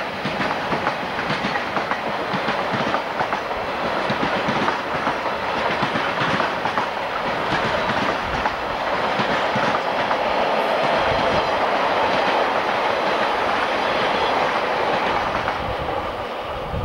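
Freight train of loaded double-deck car-transporter wagons passing close by, its wheels clicking rapidly over the rail joints amid a steady rumble. The sound thins out and drops near the end as the last wagon clears.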